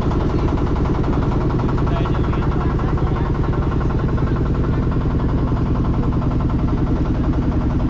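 A boat's engine running steadily, with a fast, even chugging.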